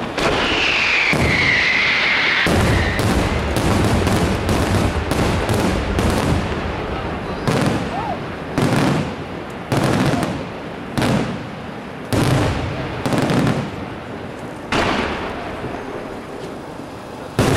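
Aerial firework shells bursting in a display. A high whistling tone in the first two or three seconds, then a fast run of cracking bursts, then heavy bangs about once a second, each trailing off in echo.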